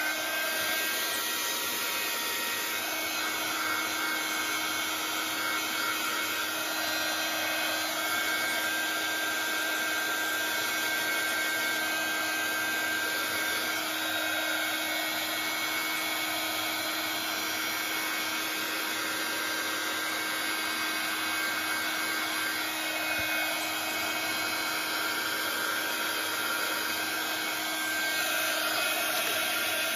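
Handheld heat gun blowing steadily, a loud even rush of air over a steady motor hum. It switches on at the very start.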